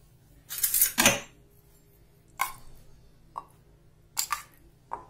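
A metal spoon clinking and scraping against a small steel bowl as curd is spooned onto raw chicken pieces: a louder, longer scrape about a second in, then four short clicks spread through the rest.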